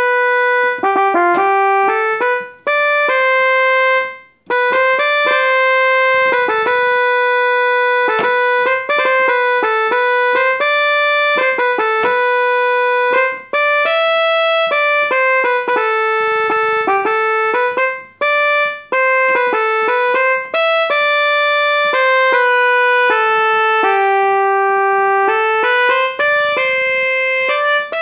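Portable electronic keyboard playing a simple melody in a piano-like voice, one held note at a time, with only brief gaps between phrases.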